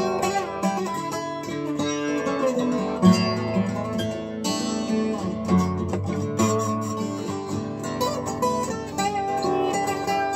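Steel-string acoustic guitar played solo: an instrumental passage of picked notes and chords, with no voice.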